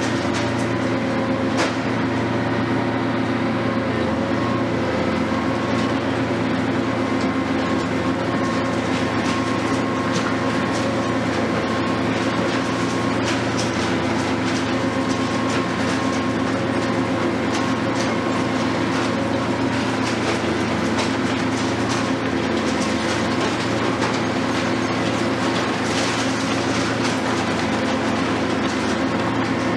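Hitachi 470 long-reach demolition excavator running steadily under load, its diesel engine and hydraulics holding an unchanging pitch, with scattered crackles and crunches of masonry breaking and falling.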